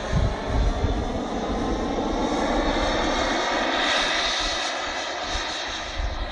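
Radio-controlled model jet flying past: a steady engine rush with a faint hum of tones, easing off slightly in the last couple of seconds. Wind buffets the microphone underneath.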